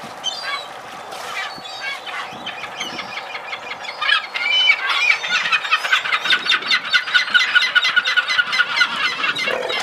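Birds squawking: scattered calls at first, then from about four seconds in a louder, crowded run of short repeated squawks, several a second. A deeper call starts right at the end.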